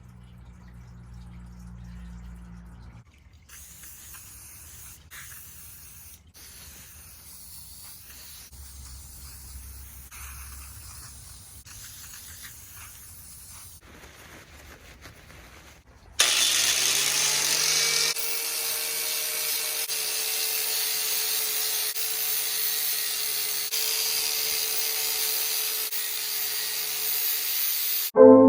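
A small electric power tool starts abruptly after a long faint stretch. Its motor spins up with a quick rise in pitch, then runs steadily with a whine and a hiss.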